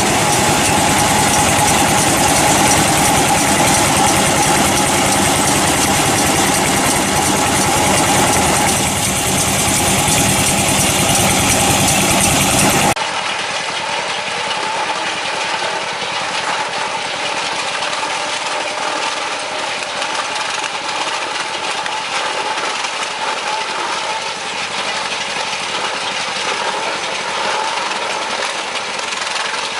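Engine-driven farm machinery running steadily. About 13 seconds in, the sound cuts abruptly to a second, quieter machine running.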